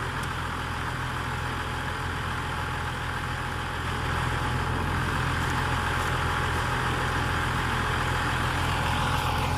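Valmet 860.1 forwarder's diesel engine idling steadily, getting a little louder about four seconds in.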